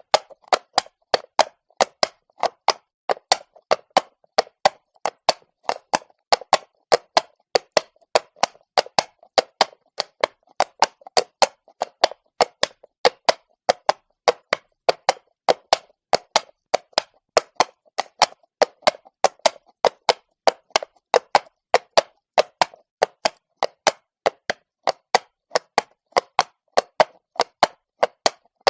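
Horse hooves walking on stone, an even clip-clop of sharp hoof strikes about three a second.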